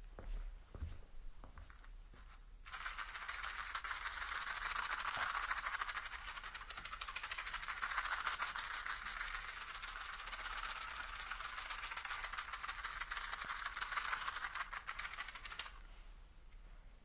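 A matchbox shaken steadily, the matches rattling inside, starting about three seconds in and stopping about three-quarters of a second before the end. It is a binaural 3D recording, so the rattle is placed around the listener's head. A few faint clicks come before it.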